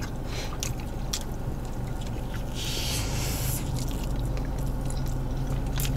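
Close-up mouth sounds of two people biting and chewing chicken sandwiches: small wet clicks and smacks over a steady low hum, with a brief hiss-like rustle about halfway through.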